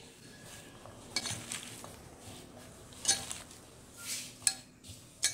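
A hand rubbing and pressing chopped bilimbi with spices in an enamel pot, a soft wet rustle broken by four sharp clinks against the pot, the loudest about three seconds in.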